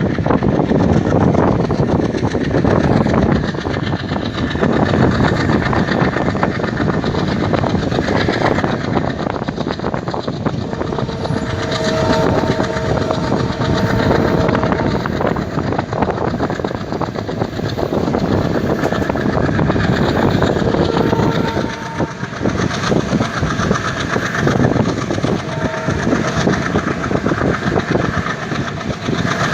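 ALCO-engined WDG3A diesel locomotive chugging hard as it pulls away and accelerates. Its twin horns sound a two-note chord for about four seconds near the middle, again for a second or so about two-thirds through, and a short toot near the end.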